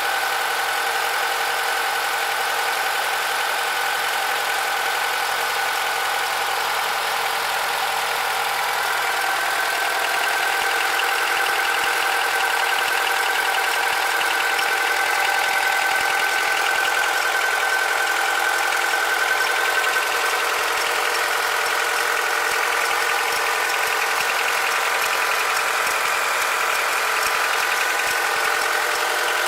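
Honda K20Z2 2.0-litre inline-four engine running steadily, a little louder from about ten seconds in, with the extraneous noise the owner is trying to track down.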